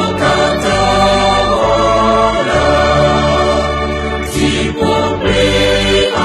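A choir singing a song with instrumental backing and a strong bass line.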